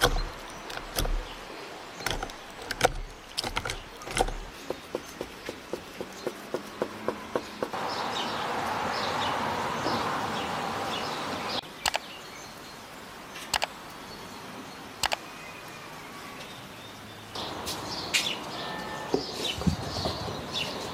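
Clicks and knocks of a watermelon being cut open and handled, then watermelon juice pouring into a glass as a steady hiss for about four seconds. Birds chirp near the end.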